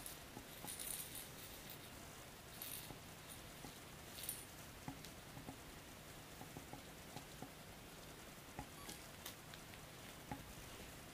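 Faint scattered taps and rustles from a calico kitten playing with a feather wand toy and a small ball on carpet, with a few short rustles in the first half.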